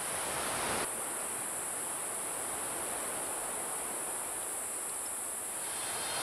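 Steady high-pitched drone of insects over a soft background hiss, with a short rush of noise in the first second.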